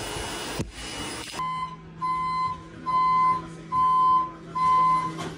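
Warning beeper of an electric warehouse pallet truck: a regular series of high, even-pitched beeps, each about half a second long and a bit under one a second, over a steady low hum. For the first second or so, before the beeps start, a steady rushing machine noise runs and then cuts off.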